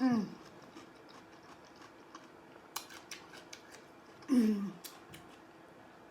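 Close-up eating sounds: small crisp crunches and mouth clicks of chewing, likely cucumber. There are two short falling vocal sounds, one at the start and one about four seconds in.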